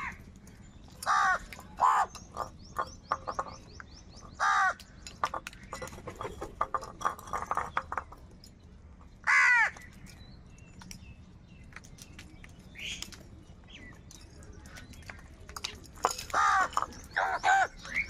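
Several house crows cawing: single caws spaced out through the first half, then a quick run of caws near the end, with light clicks between the calls.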